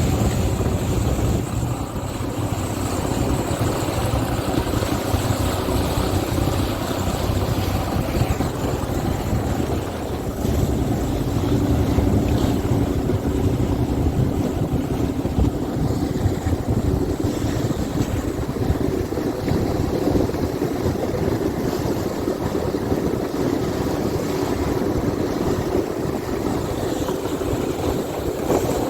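A motorboat's engine running steadily under way, with wind rushing over the microphone and water splashing against the hull.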